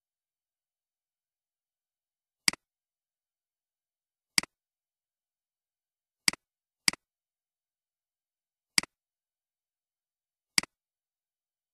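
Six sharp computer mouse clicks, each a quick press-and-release pair, one to two seconds apart, two of them in quick succession about halfway through, with dead silence between.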